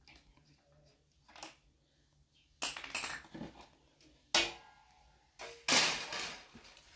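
Standing fan being taken apart by hand: the plastic fan blade is pulled off the motor shaft and set down against the wire grille, giving a few loud clattering knocks in the second half, among quieter handling rustles.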